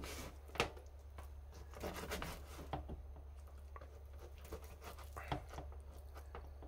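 Kitchen knife cutting through thawed raw meat on a cutting board: soft scattered slicing and scraping, with a sharper knock of the blade on the board about half a second in and another about five seconds in.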